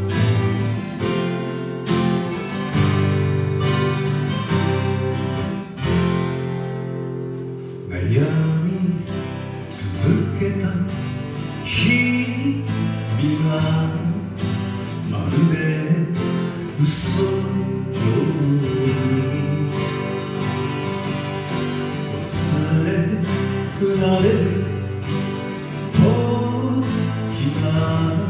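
Live music: several acoustic guitars strumming a slow song, with a singing voice coming in about eight seconds in and carrying on over the guitars.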